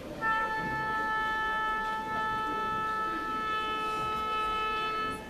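A single long, steady note on the pitch A from an orchestral wind instrument, starting just after the start and held for about five seconds before stopping cleanly. It is the tuning A given to the orchestra before it plays.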